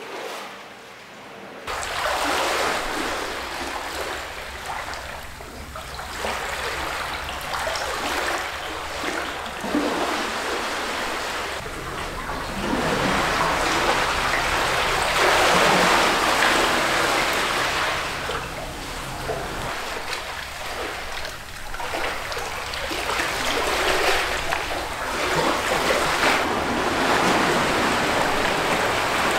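Sea waves washing onto the shore, a rush of water that swells and eases every few seconds. It begins suddenly about two seconds in.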